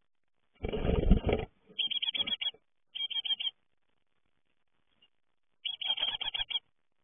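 Great tit nestlings inside a wooden nest box: a short burst of scuffling and fluttering against the wood about a second in, then three quick runs of rapid, high, repeated chirping calls.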